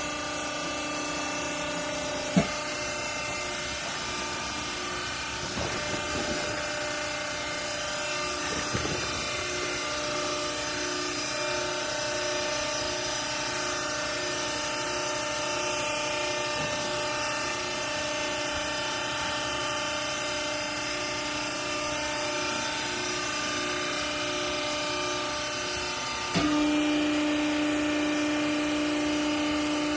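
Hydraulic power unit of a vertical clothing baling press running with a steady hum. A sharp click comes a couple of seconds in, and near the end the hum suddenly gets louder and changes pitch.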